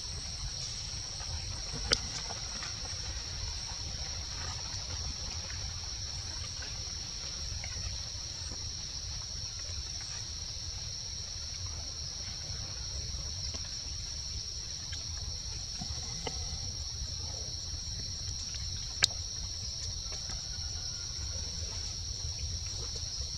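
Steady, high-pitched insect chorus, with a low rumble underneath. Two sharp clicks break through, one about two seconds in and one near the end.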